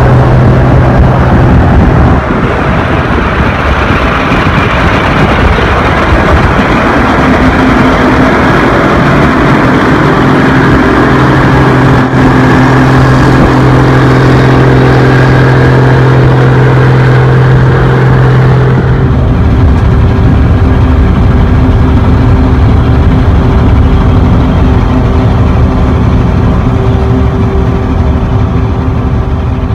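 Heavy farm machinery engine running steadily under load, its note changing abruptly about two-thirds of the way through.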